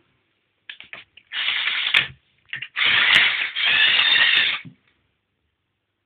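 LEGO Technic 8275 bulldozer's electric motors and plastic gears running in two short bursts, the second longer, with a few quick clicks before each run.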